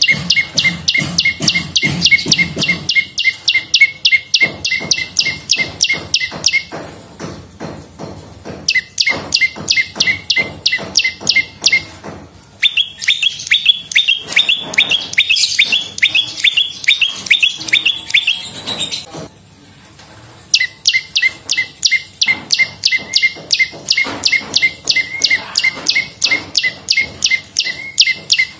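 A prenjak lumut singing a fast, even series of sharp, repeated chip notes, about four to five a second, in long runs broken by short pauses. The middle run is higher-pitched than the others.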